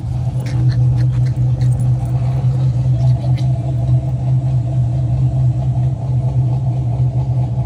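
A loud, steady, low mechanical hum from a running motor, holding one droning pitch with overtones, with faint light clicks over it; it cuts off sharply right at the end.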